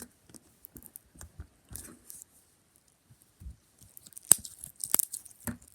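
Slime being squished and worked in the hands, giving scattered wet clicks and pops, the loudest a little past four seconds and at about five seconds.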